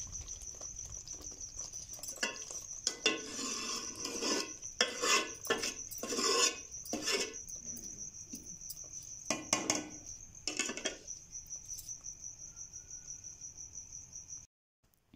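Metal ladle stirring and scraping in an aluminium pot of saag, a run of scrapes and knocks from about two seconds in to about eleven seconds. A cricket trills steadily and high-pitched behind it until the sound cuts off abruptly near the end.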